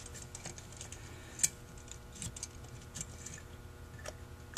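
Faint, irregular light clicks and ticks of a Holley 2280 two-barrel carburetor's metal parts knocking together as it is handled and turned over by hand, with one sharper click about a second and a half in.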